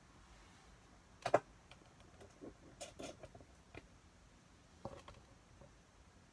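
A few scattered light clicks and taps of small hard objects, the loudest a quick double click about a second in, with smaller clusters of clicks after it.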